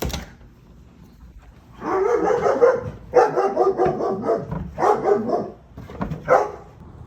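A dog barking in four drawn-out bouts, the first starting about two seconds in.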